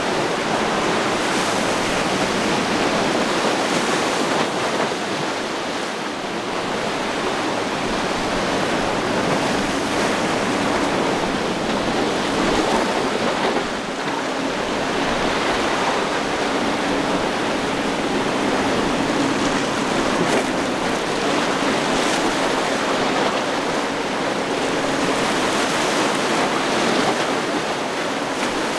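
Rough inlet water: waves breaking and churning in a steady rush. A faint steady motor hum runs beneath it from about nine seconds in.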